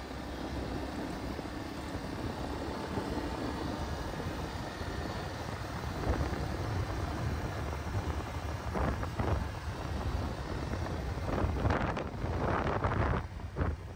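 Motorcycle running at riding speed with road noise, and wind buffeting the microphone in gusts from about halfway through, strongest near the end.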